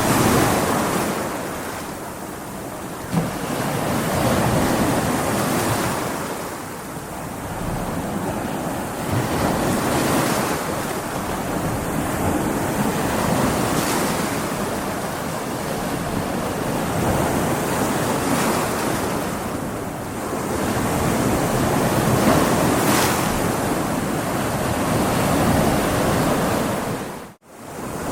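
Stormy sea: heavy waves surging and breaking, with wind, the noise swelling and falling with each wave. It cuts out for a split second near the end.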